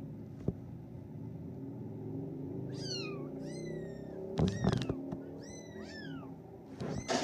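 Three-week-old Bengal kitten mewing: several short, high mews that fall in pitch, mixed with a couple of louder bumps and rustles of the kitten being handled.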